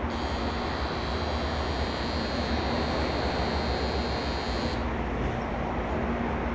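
Electronic departure bell on a Shinkansen platform: a steady, high, shrill ring that starts abruptly and stops sharply after about five seconds, signalling that the doors are about to close. Under it runs the steady hum of the waiting 700 series bullet train.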